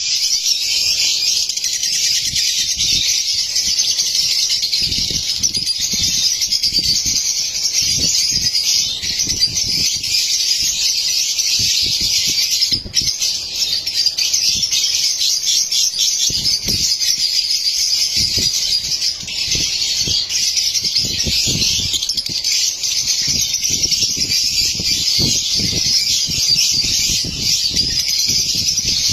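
A flock of lovebirds chattering, a dense, unbroken high-pitched twittering of many birds at once, with a short lull about halfway through.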